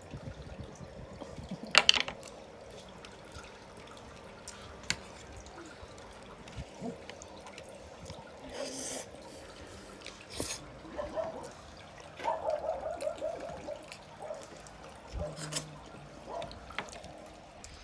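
A person eating: wet chewing and mouth sounds, broken by sharp clicks, the loudest about two seconds in.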